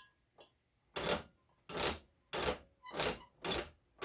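Bench vise screw being cranked, rasping in a steady rhythm about twice a second from about a second in: the screw is running dry and needs more grease.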